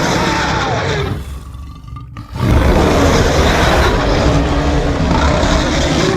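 Loud, rough roaring sound effect with a deep rumble. It drops back about a second in and comes back louder about two and a half seconds in.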